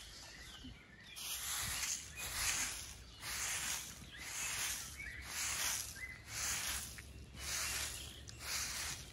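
A broom sweeping bare ground, about a dozen rhythmic swishes roughly one every three quarters of a second.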